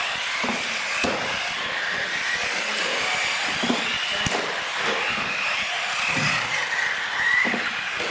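Radio-controlled UTV trucks' electric motors whining, the pitch rising and falling as the throttle is worked, over a rush of small tyres on concrete. A sharp knock comes a little past halfway as a truck lands off a ramp.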